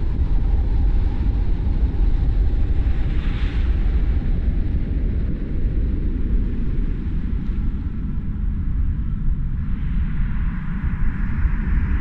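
Car driving on a road: steady low rumble of road and wind noise, with a short swell of hiss about three and a half seconds in and a longer, stronger one near the end.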